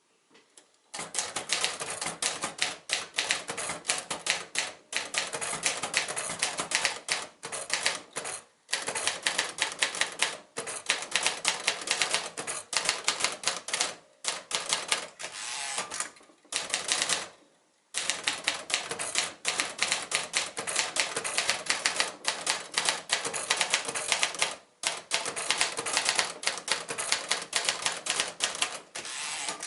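1954 Royal Quiet De Luxe manual portable typewriter being typed on steadily: quick runs of key and typebar strikes, broken by a few short pauses.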